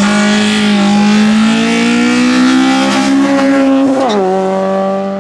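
Hillclimb race car engine at high revs, its pitch climbing steadily for about four seconds, then dropping sharply and holding lower.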